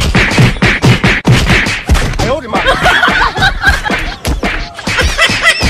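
A rapid flurry of slaps and thwacks landing, with shouts and cries among the blows: a staged beating.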